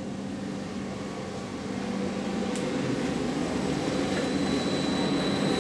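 Large vibratory finishing bowl (REM superfinishing machine) running just after start-up, churning ceramic media around a crankshaft in a steady hum. The hum grows somewhat louder about two seconds in, and a faint high whine joins near the end.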